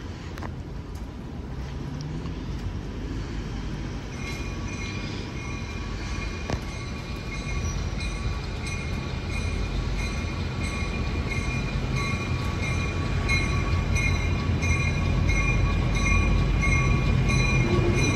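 An approaching LIRR EMD MP15AC diesel switcher locomotive, its engine rumble growing steadily louder as it nears. A steady high-pitched squeal rides over it from about four seconds in.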